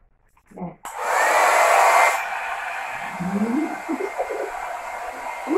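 Pink handheld hair dryer switched on about a second in, blowing air on the back of the neck and head. It runs loudest for about a second, then settles to a lower, steady blowing with a faint whine.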